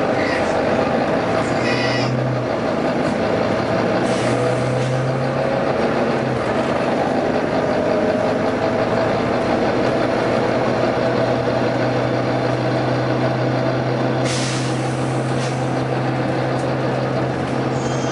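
Volvo B9TL double-decker bus engine running steadily, with short hisses of released compressed air from its air system, one about four seconds in and a longer one about fourteen seconds in.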